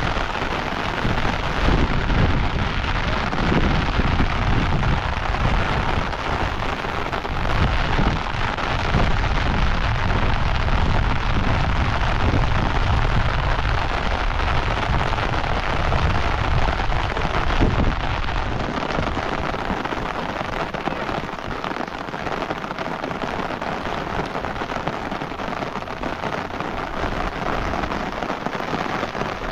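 Steady rain hiss, with wind rumbling on the microphone for the first two thirds; the rumble drops away after about eighteen seconds, leaving the rain alone.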